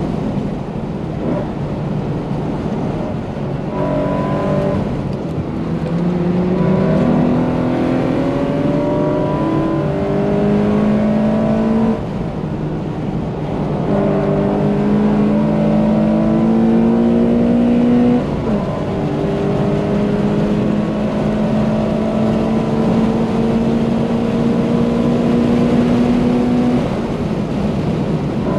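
Subaru BRZ's tuned flat-four engine, with a catless exhaust and unequal-length header, heard from inside the cabin while running hard at high revs on track. Its pitch climbs in long pulls and drops suddenly about 12 and 18 seconds in and again near the end.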